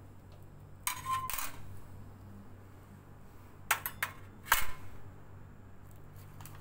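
Metal surgical forceps clicking and clinking against a stainless steel instrument tray: a short cluster of sharp clicks about a second in and a louder cluster around four seconds in.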